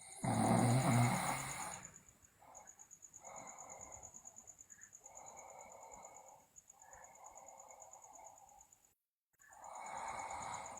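A sleeping person snoring: one loud, low snore at the start, lasting about a second and a half, then a run of softer, raspy breaths about every second and a half, with a louder one near the end.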